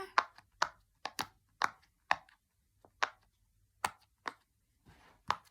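Silicone bubbles of a Pop It fidget toy being pressed through with a finger, each giving a short pop: about a dozen pops at an uneven pace, several close together, then more spread out.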